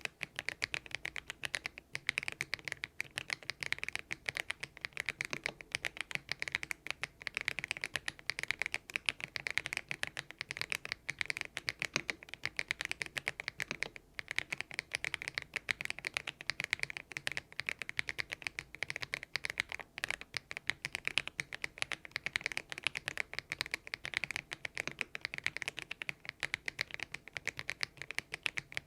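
Continuous fast typing on a Thinkway TV108 mechanical keyboard fitted with hand-lubricated Kailh Box Aurora Ice Cream switches: a dense, even stream of keystroke clacks, many a second.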